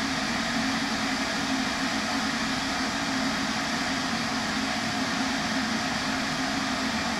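Kettle heating water: a steady, loud rushing hiss with a low hum underneath.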